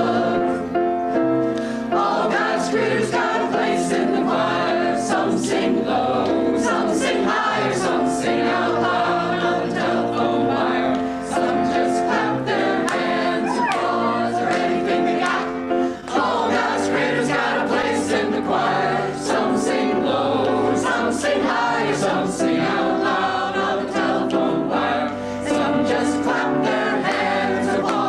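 Mixed choir of men's and women's voices singing together in parts, cutting off at the end of the song.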